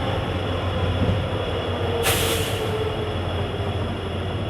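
Passenger train rolling slowly as it comes to a halt: a steady low rumble with a faint, slowly falling wheel squeal, and a short hiss about two seconds in.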